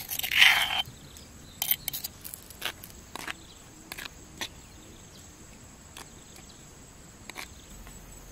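Metal spoon scraping and clicking against a shallow mortar dish while scooping up chili sambal: one longer scrape about half a second in, then a scatter of short taps. Insects buzz steadily at a high pitch throughout.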